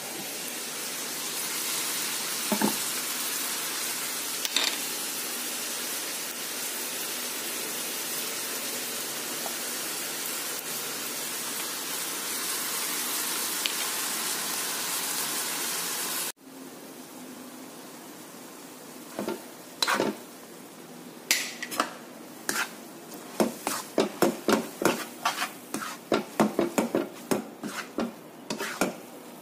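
Rice vermicelli frying in a hot wok with a steady sizzling hiss. After a sudden drop about halfway through, the sizzle is quieter and a spatula scrapes and clacks against the pan in quick repeated strokes as the noodles are stirred and tossed.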